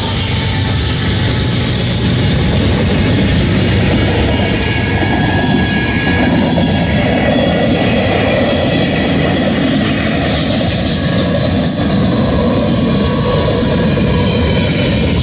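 Freight train passing close by at speed, loud and steady. BNSF diesel locomotives rumble past first. Then covered hopper cars follow with a continuous rush of steel wheels on rail.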